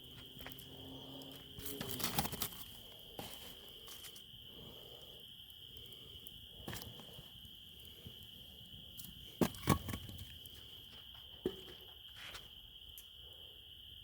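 Crickets trilling steadily in one high, unbroken tone, over the scattered pops and crackles of a wood fire, with a cluster of crackles about two seconds in and a few louder pops near the end.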